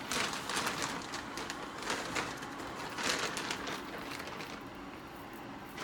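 Handling noise from a manual resuscitation (Ambu) bag being got out and readied: a few short, hissy, rustling bursts a second or so apart.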